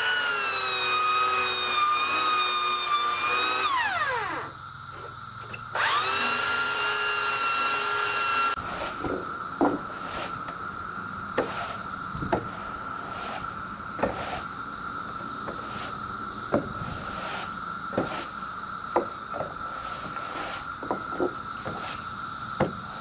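Handheld electric belt sander running on wooden deck boards with a high motor whine. It spins down around 4 s in, starts again and winds up about 6 s in, then cuts off sharply. After that a push broom sweeps the sanded deck in short scraping strokes with sharp knocks about once a second, over a steady faint tone.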